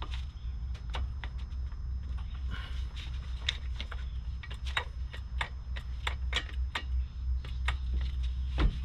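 Irregular light metallic clicks and clinks as a bolt is worked into the strut-to-knuckle mounting of a car's front suspension, over a steady low hum.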